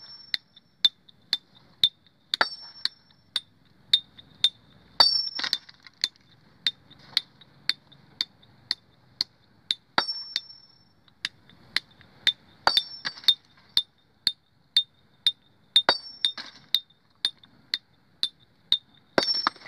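Hammer blows on a boulder being split by hand, about two strikes a second, each with a short metallic ring, and a harder ringing blow every few seconds.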